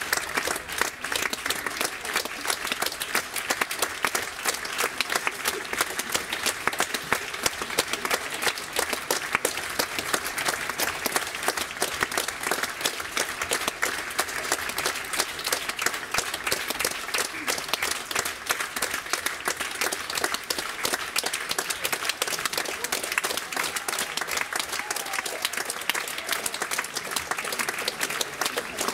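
Audience applauding: dense, continuous clapping of many hands at a steady level.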